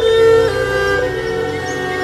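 Instrumental music: a flute-like wind instrument holds long melody notes over sustained accompaniment, changing note about half a second and a second in, with faint bird chirps in the mix.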